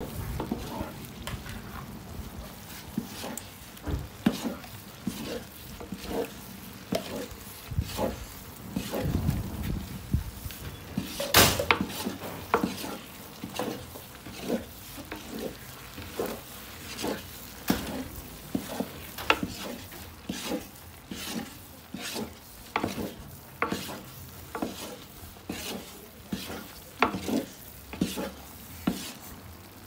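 Wooden spatula stirring and scraping thick halva paste in a large aluminium pot, in strokes about once a second, over a steady sizzle from the hot fat. A louder knock of the spatula comes about eleven seconds in.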